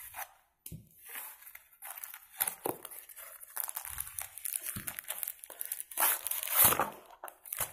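Cardboard mailer box sealed with packing tape being opened by hand: irregular crinkling, scraping and tearing of tape and cardboard, loudest about six seconds in.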